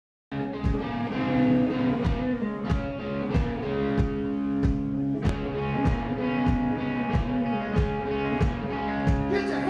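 Live rock band playing loud: electric guitars over a steady drum beat, the hits coming about every two-thirds of a second. The sound cuts in suddenly just after the start, mid-song.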